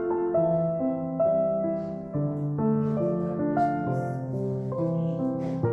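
Background music: held keyboard notes and chords, changing about every half second to a second.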